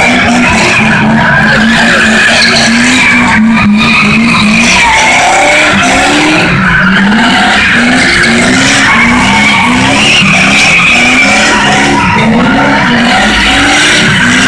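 Car engines revving hard over and over, the pitch climbing and dropping in quick swells, as tyres squeal through spinning donuts. Very loud throughout.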